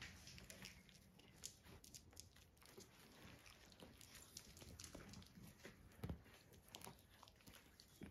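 Faint scuffling and rustling of young puppies wrestling and mouthing each other on a plush dog bed, with small clicks throughout and a soft thump about six seconds in.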